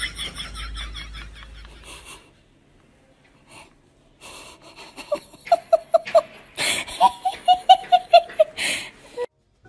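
People laughing in quick runs of short pulses: a high-pitched giggle in the first two seconds, then, after a brief lull, lower ha-ha-ha laughs with breathy gasps in between, about five a second, cutting off abruptly just before the end.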